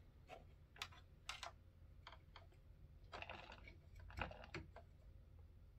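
Faint, scattered small clicks and rattles from a charging plug and cable being handled and pushed into a remote-control toy BMW i8. The clicks come irregularly, the most distinct about four seconds in.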